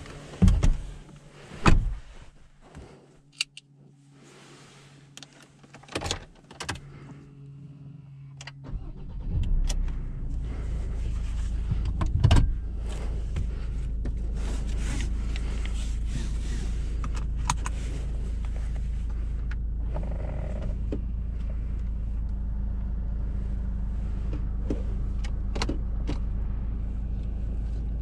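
Inside the cab of a Ford Ranger pickup: the driver's door is pulled shut with two loud knocks, followed by a few clicks and rustles. About nine seconds in the engine starts and settles into a steady idle.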